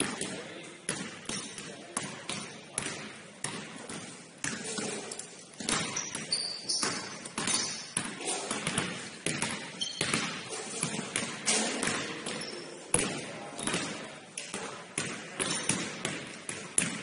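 Basketballs bouncing on a hardwood gym floor, a quick run of sharp echoing bounces, with a few short high squeaks and voices in the background.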